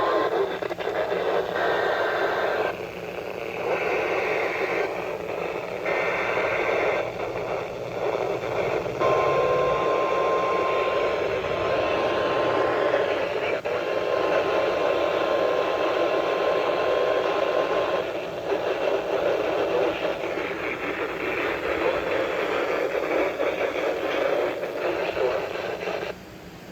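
Weak NOAA Weather Radio signal heard through heavy radio static. A steady high alert tone, typical of the weather-radio warning tone, comes through for several seconds around the middle, with one short break. The signal drops out briefly near the end.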